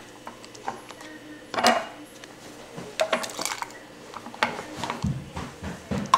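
Stainless steel ladle clinking and scraping against an enamelled Dutch oven as thick onion jam is ladled through a plastic funnel into glass canning jars: a series of separate knocks and scrapes.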